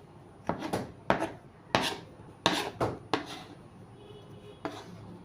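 Knife chopping through chocolate chin chin dough on a board, about seven sharp, irregularly spaced chops.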